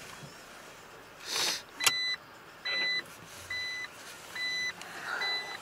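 Truck reversing alarm beeping steadily, about one beep a second, five times, starting about two seconds in, just after a short hiss and a click.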